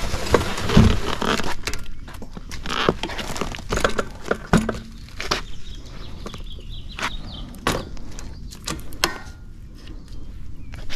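Handling noise of a folding fat-tire electric bike being lifted and set down: its metal rear rack and aluminium frame clank and knock, with many separate sharp clicks and thumps scattered through.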